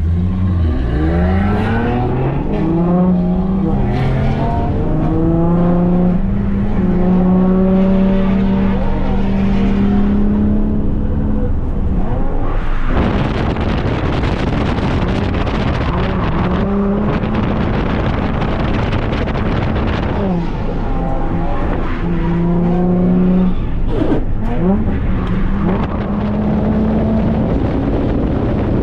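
Holden VY Commodore's Ecotec V6 under hard driving: the engine note climbs in steps and falls back as it is revved and shifted. From about 13 to 20 seconds in, a dense rush of noise covers the engine, then the note returns with more short rises.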